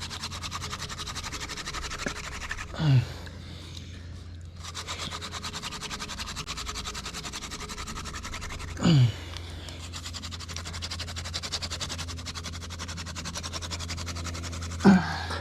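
Wooden hand-drill spindle spun fast between the palms against a hearth board, a steady scratchy rubbing as the friction grinds out an ember. Two short falling breathy grunts from the effort come about 3 and 9 seconds in.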